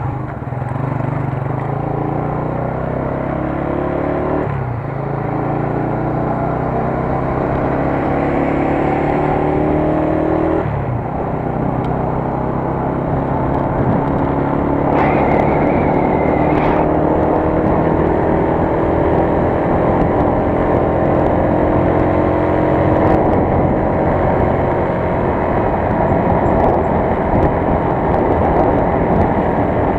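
United US 125 motorcycle's single-cylinder four-stroke engine accelerating through the gears, its pitch rising and dropping back at gear changes about four and a half and ten and a half seconds in, then running on at a steadier cruise. A brief high steady tone sounds about halfway through.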